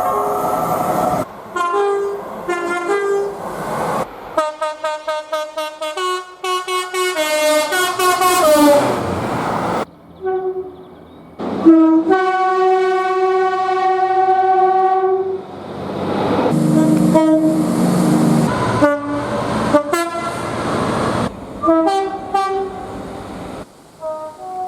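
Train horns sounding in a string of clips: short blasts, a quick run of many staccato toots, then one long held horn note about halfway through, and more short blasts near the end. A rumbling stretch comes about two-thirds of the way in, and the clips change abruptly.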